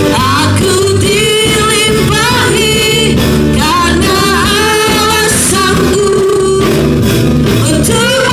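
Live church worship music: singing over a full band accompaniment, with a steady bass line.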